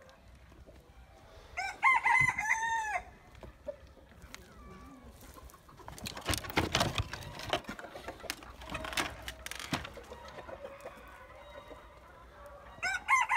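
Rooster crowing twice: a crow of about a second and a half, starting about a second and a half in, and another starting near the end. Between them, a few seconds of scuffing and knocking noises.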